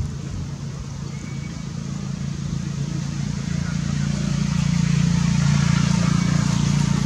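A motor vehicle's engine hum, growing louder as it draws near and loudest about five to six seconds in.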